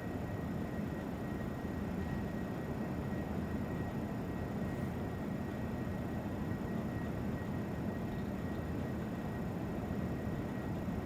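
Steady background noise: a low hum and hiss with a faint high steady tone, unchanging throughout, with no speech or distinct events.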